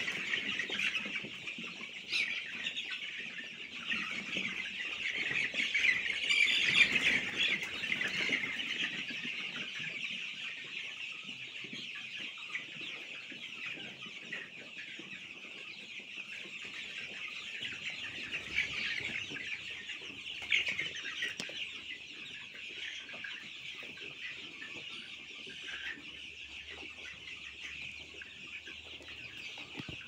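A large flock of young FFG chicks, about 20 days old, peeping and cheeping together in a dense, continuous chatter. It swells loudest about six to eight seconds in.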